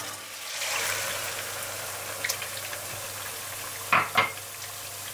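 Mushroom and white wine sauce simmering and sizzling in a frying pan with a steady hiss as the wine cooks off. Two short knocks about four seconds in.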